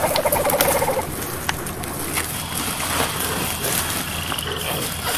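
Rustling and crackling of a woven plastic sack being gripped and pulled through dry leaves and twigs: a scatter of short crackles. In the first second there is also a pitched, fast-pulsing call that stops abruptly.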